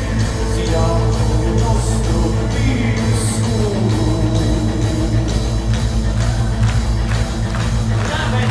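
Live rock band playing loud, heard from the audience: electric guitars, bass and drums, with a sung vocal line over them.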